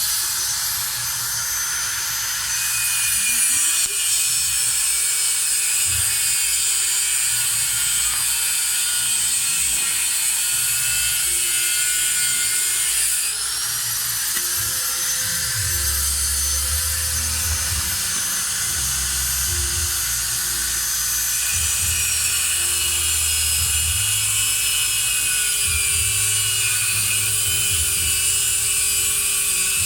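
A power tool's motor running continuously with a high-pitched whine over a harsh hiss; the whine climbs at the start as the motor spins up, and dips and climbs again about 13 seconds in.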